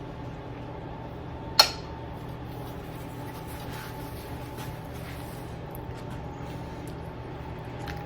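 Steady low room hum with a faint thin tone running through it, and one sharp clink about a second and a half in.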